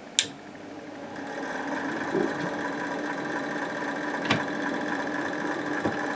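Vintage slide projector switched on with a click, its cooling fan motor spinning up over about a second and then running with a steady hum and whine. Another sharp click comes about four seconds in.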